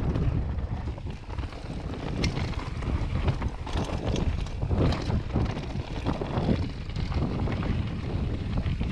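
Vitus Sommet full-suspension mountain bike riding down a dirt trail: wind buffeting the camera microphone over a low rumble of tyres on dirt, with frequent short knocks and rattles as the bike goes over bumps.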